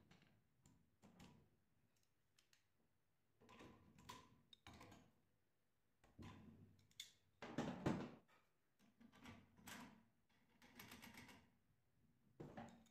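Faint, scattered clicks and metal clinks of an adjustable wrench working the nuts on a steel bench-grinder belt-sander frame, with a louder knock a little past halfway.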